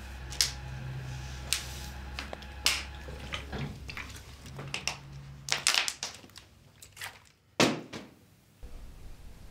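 Thin plastic water bottle crinkling and crackling in a hand as someone drinks from it, in a string of sharp irregular crackles. A single louder thud comes about three-quarters of the way through as the bottle drops to the carpeted floor.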